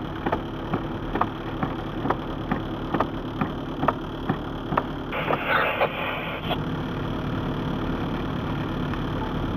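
Vehicle engine idling steadily, with a regular ticking about twice a second for the first five seconds and a short rush of noise about five seconds in.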